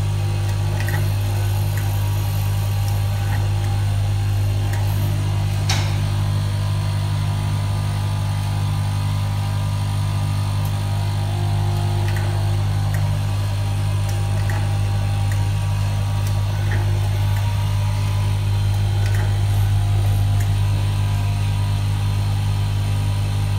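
Nylon cable tie machine running with a steady low hum, with a few light clicks and one sharper click about six seconds in as wires are worked through it.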